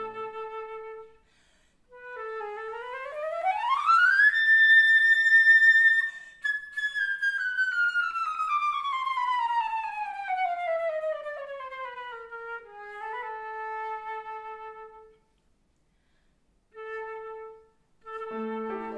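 Concert flute playing alone while the piano is silent: a line that sweeps up to a long held high note, then winds down in a long descending run to a lower held note. Near the end it breaks off twice, with one short note between the pauses.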